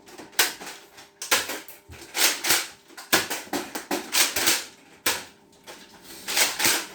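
Nerf foam-dart blasters being primed and fired: a string of about a dozen short, sharp clacks and puffs at irregular intervals.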